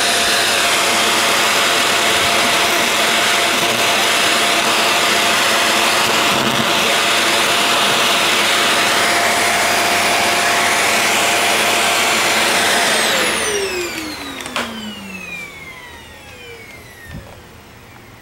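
An electric motor appliance powered through a step-down transformer runs loud and steady with a held whine. About two-thirds of the way through it is switched off and winds down, its whine falling in pitch over a few seconds, followed by a few light clicks.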